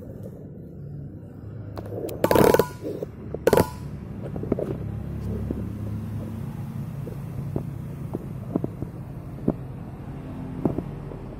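Handling noise on a phone microphone as the animals bump and brush against it: two loud knocks about two and a half and three and a half seconds in, then scattered light taps over a steady low rumble of rubbing.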